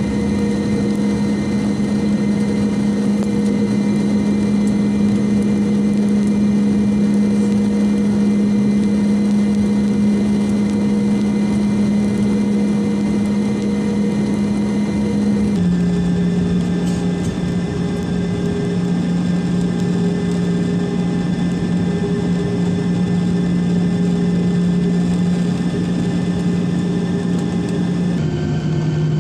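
Steady idling engine hum heard inside a jet airliner's cabin on the ground: a strong low drone with several higher steady tones over it. The pitch steps down suddenly about halfway through and again near the end.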